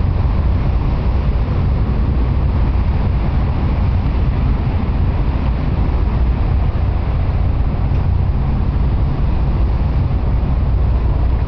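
Steady, loud low engine rumble heard from inside a slowly moving vehicle, a constant drone with a wash of noise over it that does not change.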